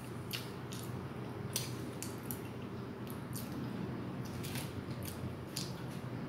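Close-up eating sounds: a metal spoon cutting into cheesecake on a paper plate, then wet chewing with sharp mouth clicks at irregular intervals, over a low steady hum.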